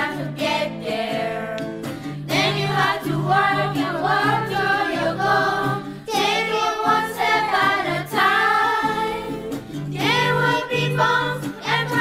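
A song sung by a group of voices over instrumental accompaniment, with the sung words "Then you have to walk and work toward your goal, take it one step at a time."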